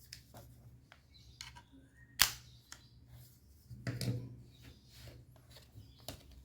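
Scattered small clicks and taps of hands and small tools handling a laptop's parts, with one sharp click about two seconds in and a few duller knocks near four seconds.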